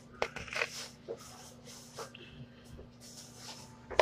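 A small kitchen blade scraping and cutting cucumber in a few short, quiet strokes.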